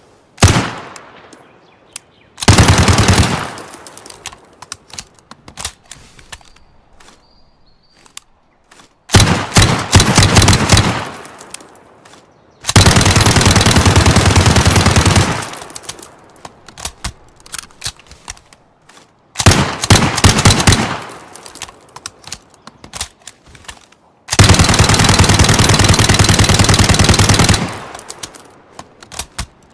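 Uzi submachine gun firing on full auto in repeated bursts: a short burst, two bursts of a second or two, and two long bursts of about three seconds, with lighter scattered clicks in the gaps between them.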